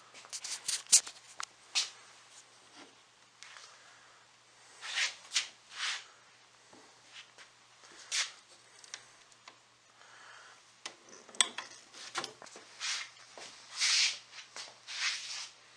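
Scattered rubs, clicks and light knocks from a hand handling the quarter-sawn oak cabinet of a treadle sewing machine. There are sharp clicks near the start and again about eleven seconds in, and short rubbing sweeps in between.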